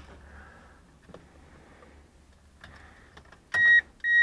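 A few faint clicks and rustles in the car, then near the end an electronic warning chime starts beeping steadily, about two beeps a second, as the ignition is brought on.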